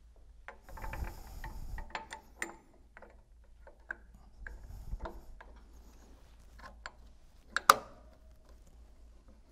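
Scattered small clicks, taps and rustling handling noise as the two halves of a vertical multi-stage pump's shaft coupling are fitted around the motor and pump shafts by hand, with one sharp click just before eight seconds in as the loudest.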